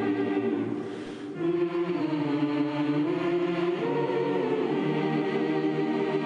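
A large choir singing long, held chords, with a brief break about a second in before the next phrase.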